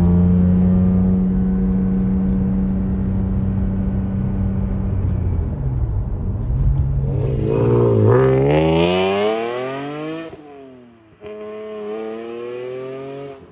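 BMW E46 M3's S54 3.2-litre straight-six, fitted with a Karbonius CSL carbon airbox intake, with its loud intake sound heard from inside the cabin. The engine first holds steady revs, then is revved hard with pitch climbing steeply. It drops sharply at a gear change and climbs again near the end.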